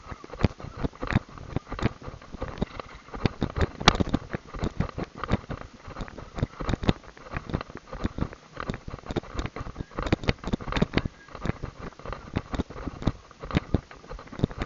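Hoofbeats of two trotting Standardbred trotters on a sandy track: a fast, uneven patter of hoof strikes that runs on without a break.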